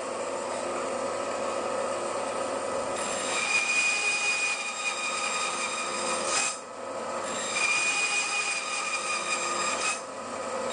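Bandsaw running, its blade cutting slots into a piece of light-coloured hardwood: the saw runs freely at first, then two cuts of about three seconds each bring a louder, high steady whine, the first about three seconds in and the second after a short pause.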